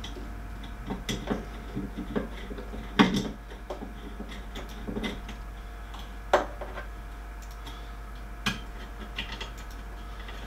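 Scattered small metal clicks, taps and scrapes of screws being fastened into a 3D printer's aluminium frame by hand. Sharper knocks come about three seconds in and about six seconds in, over a steady low hum.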